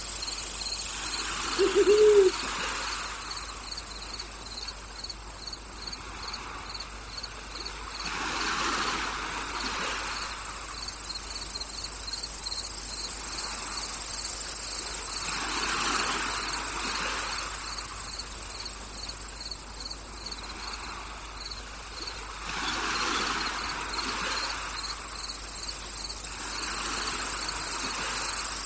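Crickets and other insects chirping: a high, steady drone with a regular pulsed chirp beneath it, over soft swells of noise that come and go every several seconds. About two seconds in, a short low call rises and falls.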